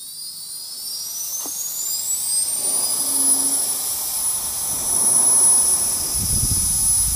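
Tiny brushless (BLDC) hair-dryer turbofan motor running on 6 volts: a high-pitched whine that climbs in pitch over the first three seconds as it spins up, then holds steady over a rush of air, a sound like a real jet engine.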